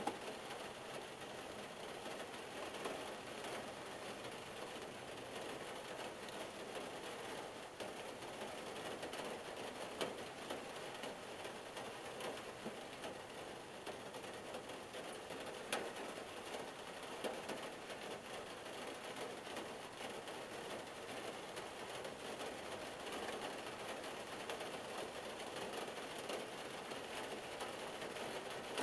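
Rain pattering steadily on a car's roof and windshield, heard from inside the closed cabin, with a few louder single drop ticks now and then.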